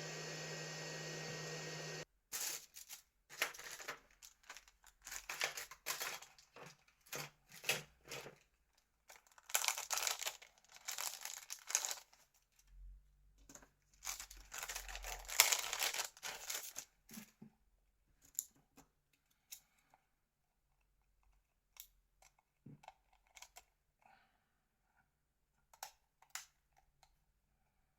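A steady hum that cuts off abruptly about two seconds in. Then thin plastic crinkles and tears in irregular bursts, thinning out after the middle to scattered small clicks.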